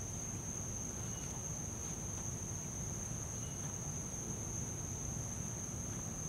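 Crickets singing at night, heard as one steady, unbroken high tone over a low background rumble.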